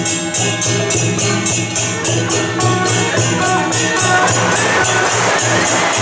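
Beiguan temple-procession music: cymbals clashing in a steady beat about four times a second over a drum, with a high wind melody coming in more strongly about halfway through.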